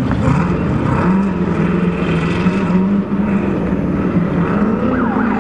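Off-road race vehicle's engine running hard at high revs. Its pitch dips briefly at the start and climbs again near the end as it accelerates.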